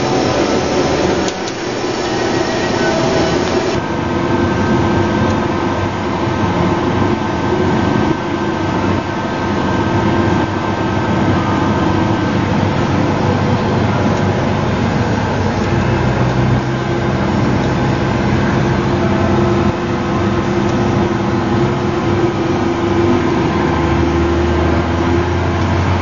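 Case IH 2388 combine running steadily while cutting soybeans with a 1020 header. Its engine and threshing machinery make a continuous loud drone with held tones, and a deeper note comes in past the halfway point.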